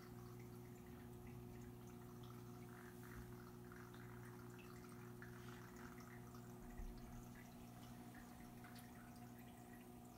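Faint sounds of a saltwater aquarium: a steady low hum from the tank's running equipment, with soft, irregular trickling and dripping of water.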